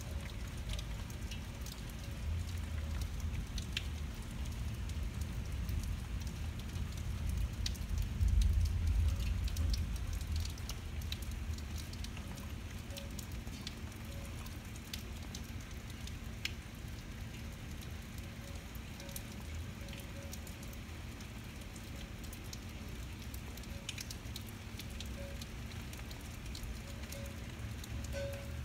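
Steady rain falling, with scattered nearby drops ticking sharply. A low thunder rumble swells after a lightning flash, is loudest about eight seconds in, and rolls away over the next few seconds.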